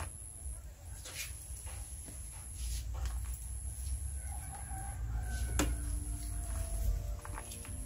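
A rooster crowing, starting about four seconds in, with a few sharp clicks and knocks from tin cans being filled with grated cassava and set down on the banana-leaf-covered steamer.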